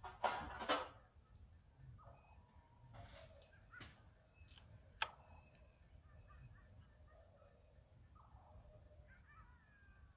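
Faint animal and bird calls: two short, harsh calls in the first second, then scattered small chirps through the rest. There is a sharp click about five seconds in, over the steady high hiss of a security camera's microphone.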